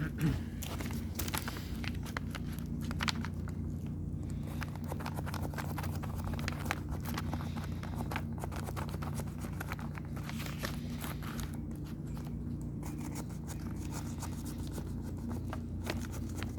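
Hand work on parts: scattered clicks and scrapes over a steady low hum.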